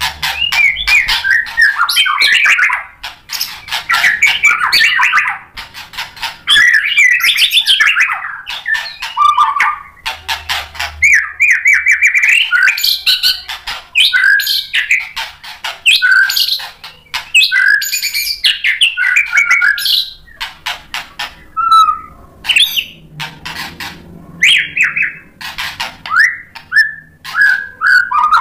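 Caged white-rumped shama in full song: a loud, fast, varied stream of whistled phrases and sharp ticking notes, mixing in mimicked calls, broken by brief pauses.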